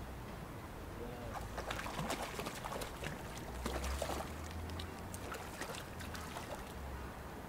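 Splashing and slurping at the water surface as a fish rises to take floating bread: a run of short splashes, the loudest about two and four seconds in.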